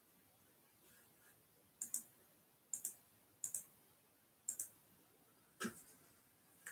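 Someone clicking at a computer: five sharp clicks about a second apart, the first four each a quick double click, the last one single and duller.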